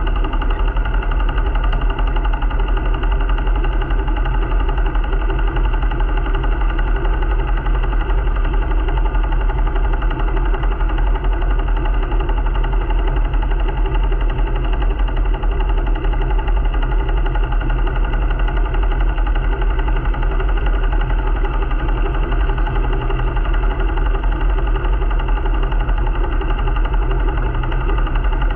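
A sailing yacht's inboard diesel engine running at a steady speed, motoring under way, with a constant low, even drone.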